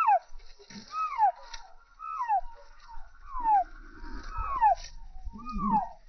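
Young chicken chick peeping: a loud, short call sliding downward in pitch, repeated about once a second, six times.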